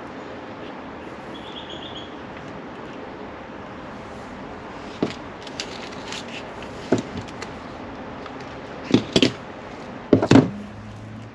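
A series of sharp knocks and clatters of hard objects being handled, sparse at first and louder near the end, over a steady background hiss.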